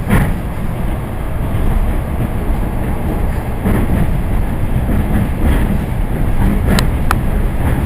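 Steady running noise of an ED4M electric multiple unit heard from inside the carriage. It is a continuous low rumble, with the wheels knocking sharply over rail joints now and then: once near the start, once mid-way, and a quick cluster near the end.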